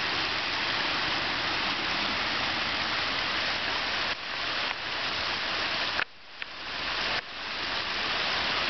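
Floodwater rushing across open ground, a steady loud rush of moving water. It dips briefly about four seconds in and drops away for about a second near six seconds before coming back.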